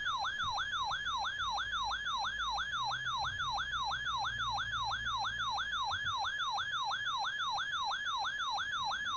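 Weather radio alert alarm going off for a flash flood warning: an electronic siren-like tone warbling up and down rapidly, about three times a second, at a steady level.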